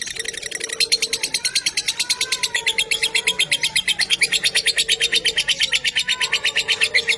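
Lovebird giving a long, unbroken ngekek chatter: a rapid string of sharp, high notes, about a dozen a second, held without a pause.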